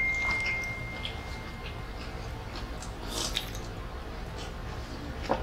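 Close-miked eating sounds: small wet mouth clicks and chewing, with a slurp from a small bowl about three seconds in. At the start, the tail of a bell-like ding fades out over the first two seconds.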